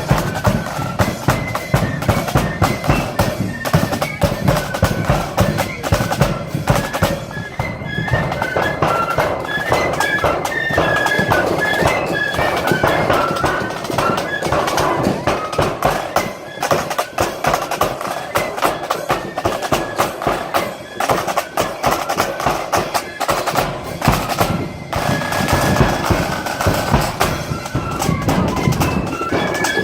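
Marching flute band playing a tune in unison over snare and bass drums. The shrill flute melody and the steady drumming run continuously.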